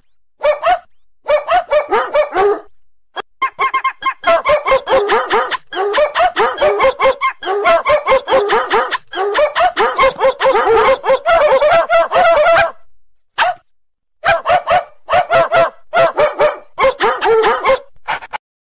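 Novelty ringtone of dog barks set to a tune: quick runs of short, pitched barks in a bouncy rhythm, with brief pauses between phrases.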